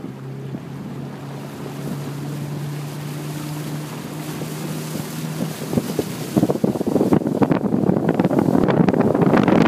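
Motorboat engine running with a steady low hum, then from about six seconds in a loud crackling rush of wind buffeting the microphone, with water noise, takes over and drowns it out.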